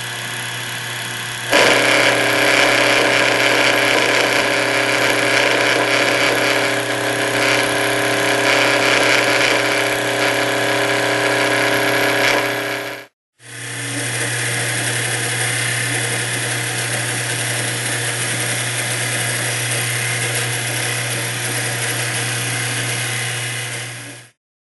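Sherline benchtop lathe turning maple at 2000 RPM, its motor running with a steady hum. About a second and a half in, the high-speed steel tool starts cutting the wood and the sound jumps louder, with several steady tones over a hiss of cutting. It breaks off briefly about 13 seconds in, then goes on as a steadier, slightly quieter cut until just before the end.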